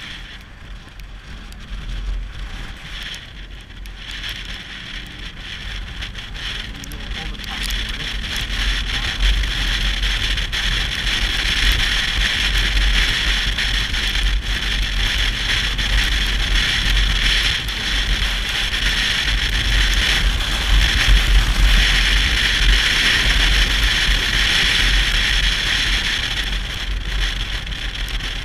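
Motorcycle on the move: steady low engine and road rumble with wind rushing over the microphone, building over the first ten seconds or so and then holding steady.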